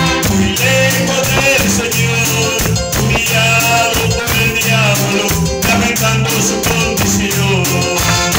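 Live electronic keyboard music: a sustained melody line over a steady, repeating bass pattern.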